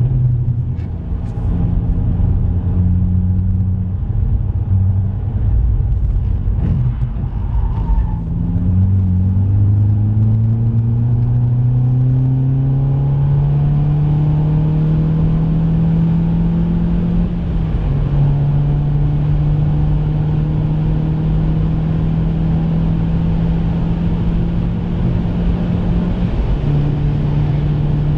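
Volkswagen Polo GTI's 1.8-litre turbocharged four-cylinder engine heard from inside the car under hard acceleration. It holds a steady note through a corner for the first several seconds, then climbs slowly in pitch as the car speeds up. It drops at an upshift about two-thirds of the way in, climbs again, and drops at a second upshift near the end.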